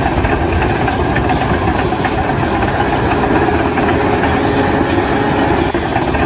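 A large engine running steadily and loudly, with a fast low pulsing throughout.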